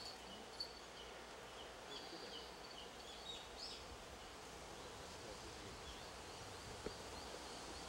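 Faint outdoor background noise with scattered small high bird chirps, most of them in the first half.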